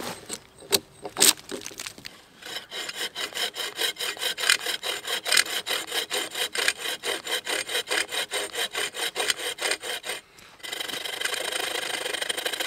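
A few sharp knocks, then a hand bow saw cutting into a thick pine log with fast, even back-and-forth strokes, about five a second. After a brief pause about ten seconds in, the strokes run together into a steady rasp.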